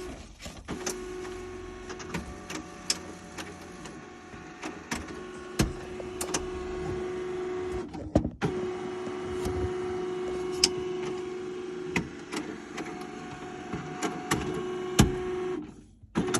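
HP Color LaserJet CP1515n laser printer running its internal drive motor with a steady hum and a series of sharp mechanical clicks. The motor stops briefly near the start, about eight seconds in, and again just before the end. The printer is going through its print motions without printing, which the owner puts down to its top rollers not turning.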